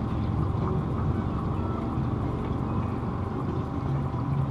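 Boat outboard motor running steadily at trolling speed, a low even drone mixed with the sound of water at the stern.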